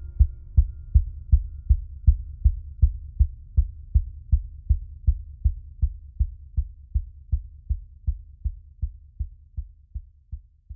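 Closing bars of the soundtrack music: a low, steady pulsing beat, a little under three beats a second, fading out gradually and stopping at the end.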